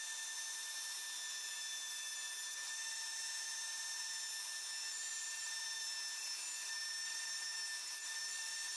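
Table-mounted router running steadily with a high-pitched whine while thin birch strips are fed past its bit.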